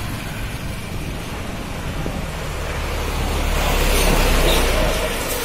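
Wind rumbling on the microphone while cycling along a road, with a motor scooter passing and pulling ahead; the sound grows loudest about four seconds in as the scooter goes by.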